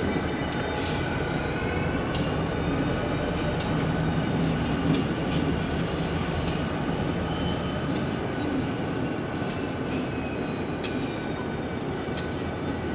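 Freight train with Susquehanna diesel locomotives rolling steadily past a grade crossing: a constant low engine rumble, steady high wheel squeal, and irregular sharp clicks of the wheels over the rail joints.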